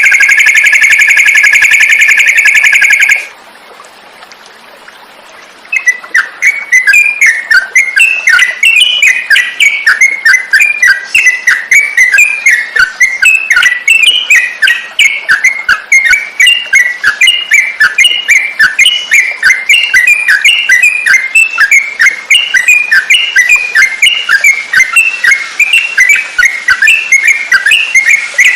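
Recorded song of a yellow-vented bulbul (trucukan) played as a masteran for training songbirds: a loud, steady buzzing trill for about three seconds, a brief lull, then from about six seconds in a continuous run of quick, bubbly chirping notes.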